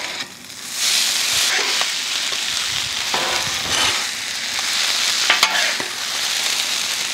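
Food sizzling on a hot Blackstone griddle as salt fish, brewis and onions are tossed together with two metal spatulas. The hiss comes up about a second in and holds steady, with a few sharp scrapes and clicks of the spatulas on the steel cooktop.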